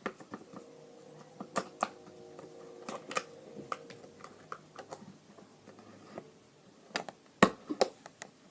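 Scattered clicks and taps of hands handling slime in its plastic container, with a sharper knock near the end, over a faint steady hum.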